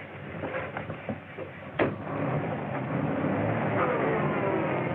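A sharp knock about two seconds in, then an early-1930s open touring car's engine running as the car pulls away, its pitch rising near the end.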